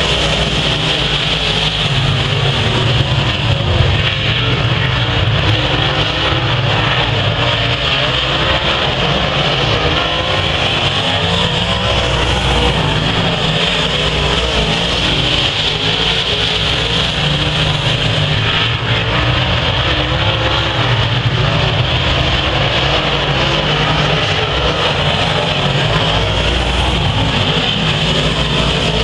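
A pack of dirt-track race cars' engines running flat out on the oval, a loud, steady, unbroken din with no let-up.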